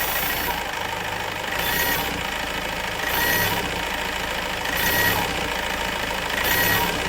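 Mahindra Marazzo's common-rail diesel engine idling with its revs swelling and dropping about every one and a half seconds: a hunting idle. The knock is gone with a new DRV pressure regulator valve, and the mechanic suspects the high-pressure fuel pump for the surging.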